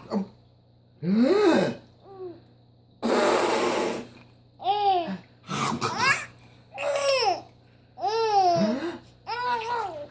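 A baby laughing in a run of short, high-pitched squeals whose pitch rises and falls, about eight bursts with breaths between them. One breathy, hoarse burst comes about three seconds in.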